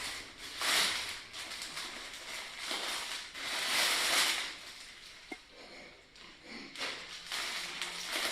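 Plastic packaging rustling and crinkling in irregular bursts as parcels of baby goods are unwrapped, loudest about four seconds in, with a couple of small clicks.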